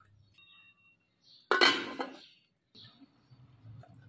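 Aluminium cooking pot and its lid clanking: one loud metallic clatter about a second and a half in, lasting about half a second, with a faint metallic ring before it and another clank at the very end.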